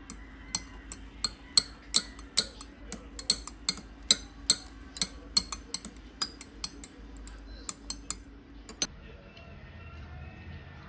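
A quick, irregular run of sharp clicks and clinks, a few a second, over a faint steady hum. Both stop together with a last click near the end.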